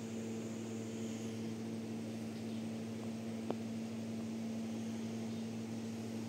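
A steady low hum over a constant hiss, with one faint click about three and a half seconds in.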